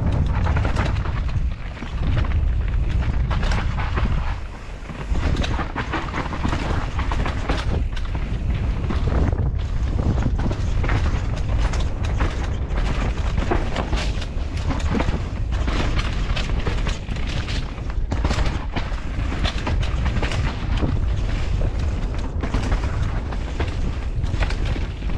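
Mountain bike ridden down a rough dirt singletrack, heard from a bike-mounted action camera: tyres crunching over dirt and stones and the bike rattling and clattering over bumps, with wind buffeting the microphone.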